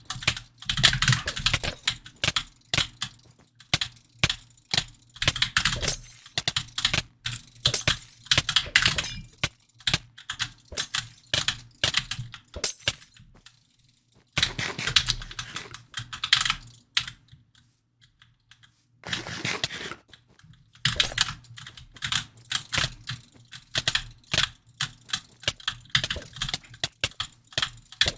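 Runs of rapid sharp clicking broken by short pauses, with one longer quiet gap about two-thirds of the way through.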